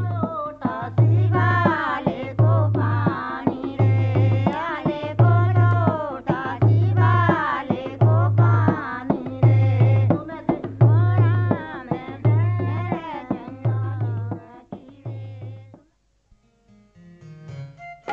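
Background music: a deep drum beat about every second and a quarter under a bending melody line. It stops about sixteen seconds in, and after a short gap another tune begins.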